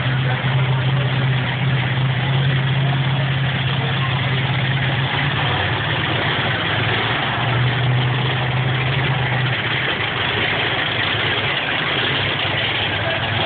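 Monster truck engine running loudly with a steady low drone that wavers and breaks up about halfway through as the truck manoeuvres.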